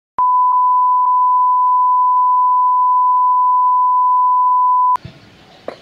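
A steady, loud test-tone beep, the reference tone that goes with a colour-bar test card, held on one pitch and cutting off suddenly about five seconds in. It gives way to faint outdoor background noise with a single knock near the end.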